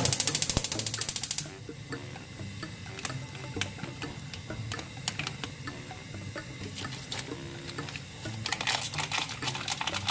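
Gas stove's electric igniter ticking in a rapid, even run of clicks for about a second and a half as the burner is lit under a pot of water. Scattered small knocks and handling follow, and near the end a foil soup sachet crinkles as it is shaken out over the pot.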